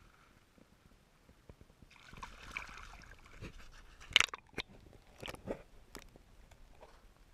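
Shallow water splashing and sloshing as a fish is let go by hand and swims off, with a sharp knock a little past halfway and a few clicks after as the camera goes under the surface.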